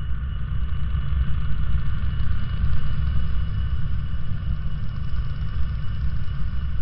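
Designed sci-fi alien-landscape ambience: a deep, steady rumble with a thin, high steady tone and a soft hiss held above it.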